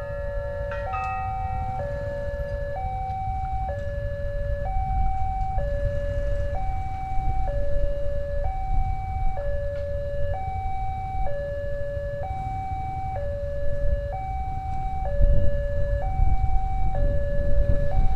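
Indonesian railway level-crossing warning alarm sounding its two-tone electronic signal, alternating a high and a low note about once a second: the warning that a train is approaching. A low rumble under it grows louder near the end.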